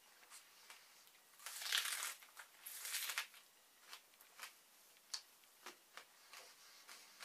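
Chewing a mouthful of raw onion: soft scattered mouth clicks, with two louder crunching passages about one and a half and three seconds in.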